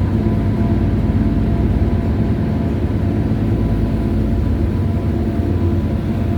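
Car ferry's twin Cummins marine diesel engines running steadily under way: a constant low drone with a few held tones and no change in speed.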